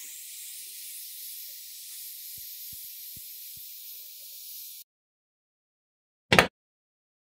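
Blue spray paint hissing steadily onto a pair of scale-model car doors, cutting off sharply a little under 5 s in. After a pause, one sharp, loud knock of a hard part on a wooden tabletop.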